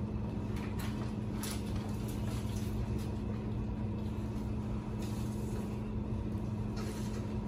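Steady low room hum, with a few faint rustles and light clicks scattered through it.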